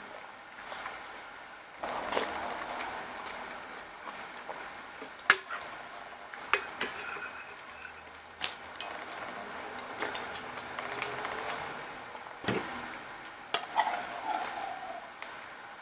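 Spoon clinking and scraping against a soup bowl while eating, with a series of sharp, irregularly spaced clinks.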